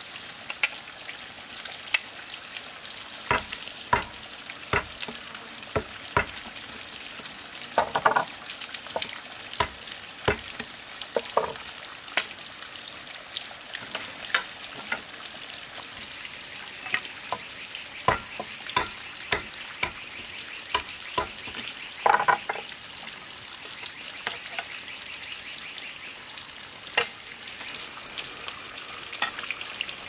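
Machete cutting and trimming thin bamboo strips against a log: irregular sharp cracks and taps of the blade biting into the bamboo, over a steady background hiss.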